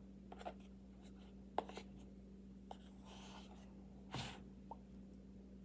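Faint eating sounds from a mouthful of baby powder: scattered soft mouth clicks and a couple of brief scratchy rustles, over a steady low hum.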